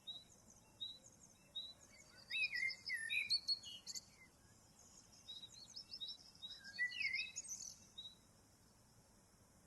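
Several songbirds singing. A short high note repeats about once a second, over louder warbling phrases that rise and fall a couple of seconds in and again near the end, with faint higher chirping behind.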